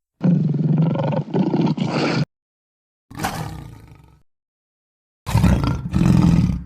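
Three big-cat roars, played as a sound effect for the extinct Beringian cave lion: a long roar of about two seconds, a shorter one that fades away, then a third loud roar cut off abruptly at the end. Each is separated by dead silence.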